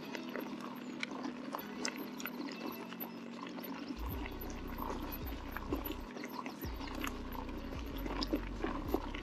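Mountain bike rolling over a rough, stony track: tyres crunching with a steady run of small clicks and knocks from loose stones and the rattling bike. From about four seconds in, wind buffets the microphone with a low rumble.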